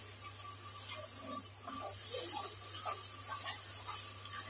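Steady background hiss with faint light scraping and clinking of a metal spoon stirring a wet spice mix in a steel bowl.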